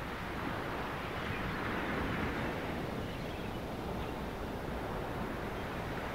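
Steady background ambience: an even, featureless hiss of noise with no distinct events.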